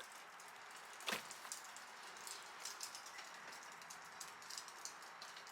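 Faint clicks and light rattles from a car door panel and its wiring connectors being handled, with one sharper click about a second in.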